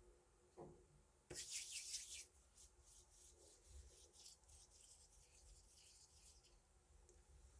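Hwatu playing cards sliding and rubbing against each other and the playing surface as they are gathered. A louder scrape comes about a second and a half in, then softer rubbing that dies away after about six seconds.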